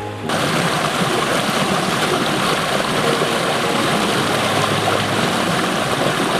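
Waterfall roaring: a loud, steady rushing of falling water that cuts in abruptly about a third of a second in.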